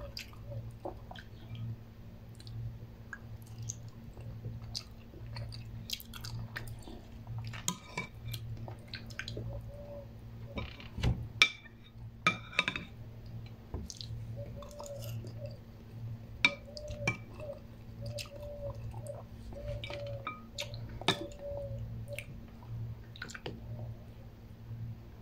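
A person eating instant noodle soup: quiet chewing with scattered sharp clinks of a metal spoon against a ceramic bowl, the loudest a little past the middle, over a steady low hum.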